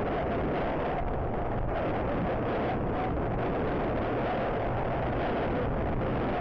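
Heavy wind buffeting on an action camera's microphone as it rides on a moving motorcycle, with the motorcycle's engine and road noise underneath. The noise is steady throughout and drowns out everything else.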